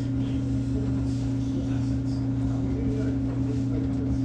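Samsung front-loading washing machine running a cycle, a steady low hum.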